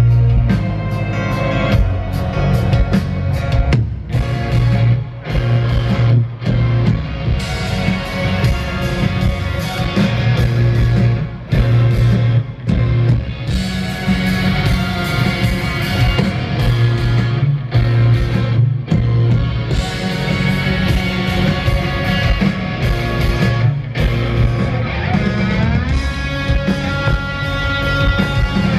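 Live rock band playing loud and steadily, led by electric guitars over keyboard and a driving beat, with bending guitar notes near the end.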